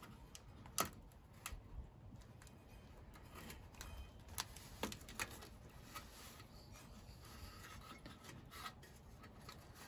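Faint rubbing and scattered light clicks and taps of small parts and tools being handled, the sharpest click about a second in.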